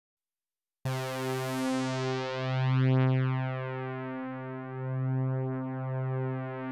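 Silence, then a little under a second in a synthesizer drone comes in: one low sustained note with many overtones, swelling and easing gently in loudness.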